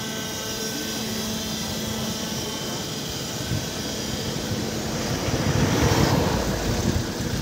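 Vehicle engine running, heard from inside the cab: a steady hum with a few faint high steady tones, and then a louder low rumble about five seconds in.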